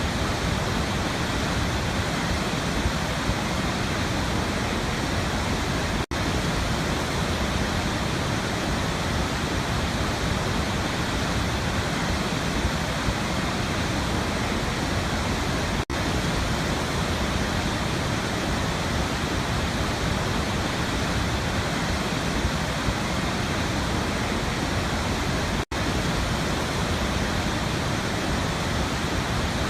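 Waterfall: falling water making a steady, even rush, broken by three momentary dropouts about ten seconds apart.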